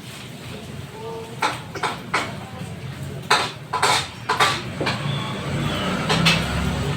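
Cutlery clinking against a plate during a meal, a series of short, sharp clinks, with a low rumble coming in about five seconds in.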